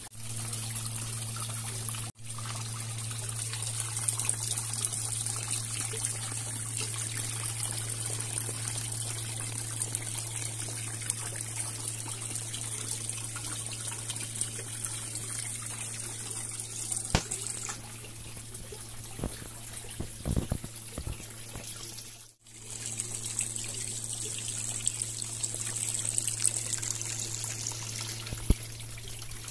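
Small decorative garden water cascade running, water trickling and splashing steadily, with a steady low hum underneath and a few light knocks about two-thirds of the way through.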